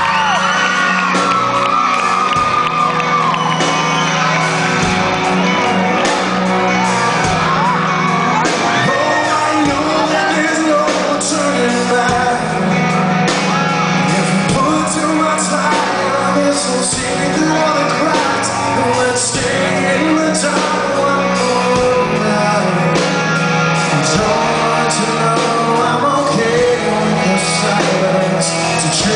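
Live rock band playing loudly in a large hall between sung lines of the song, with voices shouting over the music.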